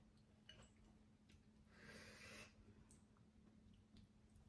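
Near silence with faint scattered clicks of someone eating noodle soup, and one short soft hiss about two seconds in.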